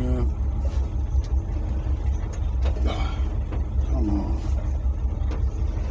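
Pickup truck engine idling while it warms up, a steady low-pitched hum heard from inside the cab.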